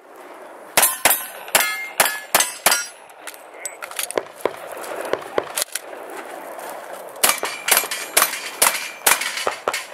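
Two quick strings of about six pistol shots each, fired at steel targets, many of the shots followed by a bright metallic ring as a steel plate is hit. A pause of about four seconds separates the two strings.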